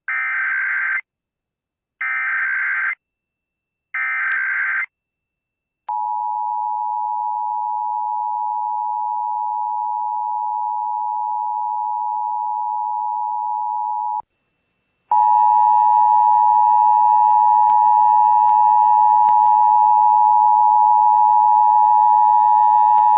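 Emergency Alert System tones broadcast over AM radio: three one-second bursts of SAME header data signalling, then the two-tone attention signal (853 and 960 Hz) held steady for about eight seconds. It breaks off for a moment and comes back louder, with a low hum beneath it.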